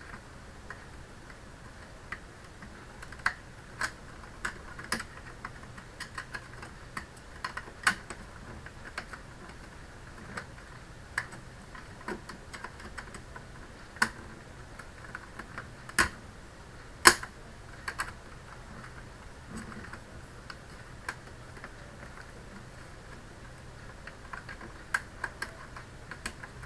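Irregular sharp clicks and small knocks of a plastic computer cover being handled and pressed into place, the loudest about two-thirds of the way through.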